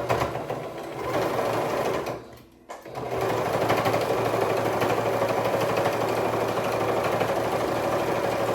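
Electric sewing machine stitching steadily, stopping briefly after about two seconds and then starting again and running on.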